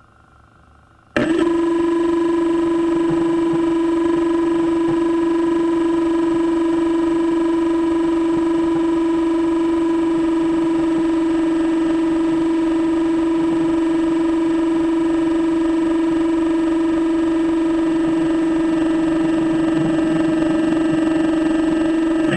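Steady, loud mechanical whine from a radio-controlled hydraulic excavator's pump motor, starting suddenly about a second in and holding one even pitch while the machine drives.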